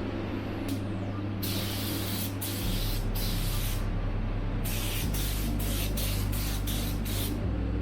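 Paint or primer being sprayed onto a repaired plastic bumper in short bursts: three longer sprays, then a quick series of about eight short ones. A steady low hum runs underneath.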